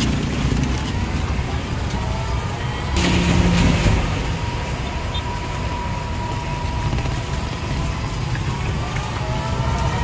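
Vehicle engine running at low speed over a wet road, with a steady high whine through most of it and a brief louder rush about three seconds in.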